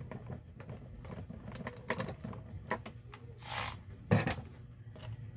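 Small metal clicks and taps as a screwdriver works at an electric drill's chuck on a wooden bench, with a brief scrape about three and a half seconds in and a sharp knock just after four seconds, the loudest sound.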